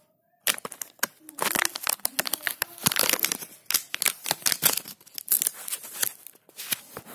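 Clear plastic blister packaging of an action-figure toy crackling and crinkling as it is pried and torn open by hand, a rapid, irregular run of sharp crackles starting about half a second in.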